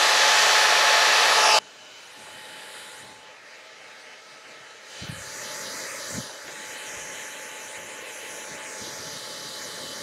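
T3 Micro AireBrush Duo hair dryer brush blowing with a steady noise that stops abruptly about a second and a half in. A few seconds later it is blowing again, more quietly, on its heat setting three, with a couple of soft bumps as it is worked against the scalp.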